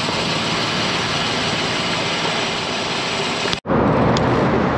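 Steady rush of wind and tyre noise picked up by a GoPro on a moving road bicycle. About three and a half seconds in, the sound cuts out for an instant and comes back a little louder, as road and traffic noise beside a highway frontage road.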